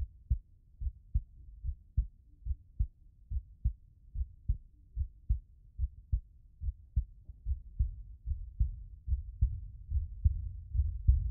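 Low, muffled heartbeat-like thumps repeating evenly about two and a half times a second, growing louder near the end.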